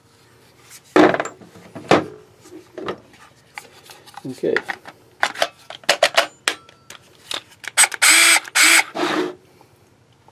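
Hard plastic clicks and knocks as Black & Decker 20 V lithium battery packs and a cordless drill are handled and set down on a workbench. Two short, louder bursts of noise follow near the end.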